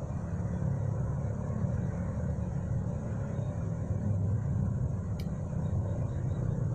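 Steady low rumble with a faint hiss above it, and a single short click about five seconds in.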